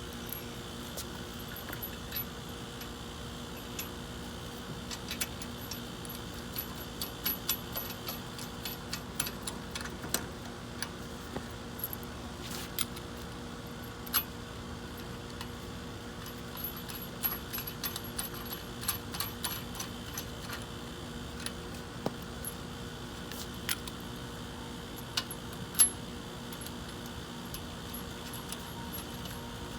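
Light metallic clicks and clinks of lug nuts and hand tools being handled while a wheel is mounted back on, irregular and coming in clusters, with one sharper clink late on, over a steady background hum.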